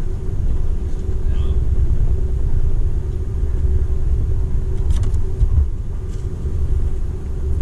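Running noise inside the cabin of a Seibu 001 series Laview electric limited express at speed: a steady low rumble of wheels on rail with a steady droning tone. A few faint light clicks come about five to six seconds in.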